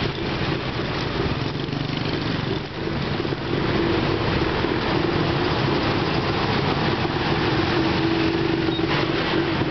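Dense city traffic close by: motorbike, bus and truck engines running and idling around a bicycle. A steady engine drone holds from about four seconds in.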